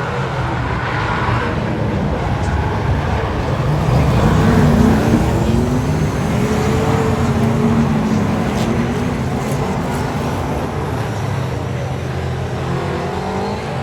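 Race car engines running on a speedway track, with pitch rising and falling as cars go by, loudest about five seconds in.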